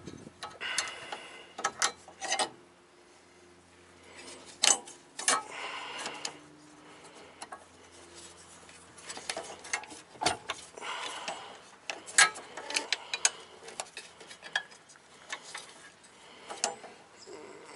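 Irregular small metal clicks, clinks and rattles of hands working a VW Mk2's brake proportioning valve and its bolts into their mounting plate, with a few sharper clanks scattered throughout.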